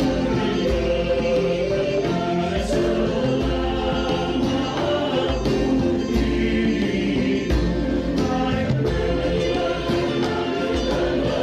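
Outro music: a choir singing a Christian song.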